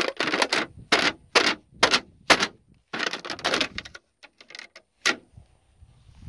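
Footsteps crunching over charred fire debris: a quick, irregular run of sharp crunches that thins to a few faint ones after about four seconds.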